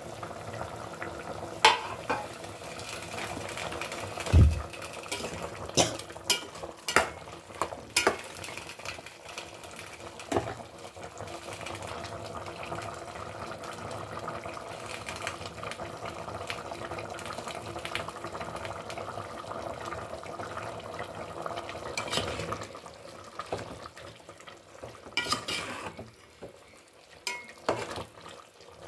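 Food frying in a pan: a steady sizzle with a utensil stirring, scraping and knocking against the pan now and then. Near the end the sizzle drops away, leaving a few separate clinks.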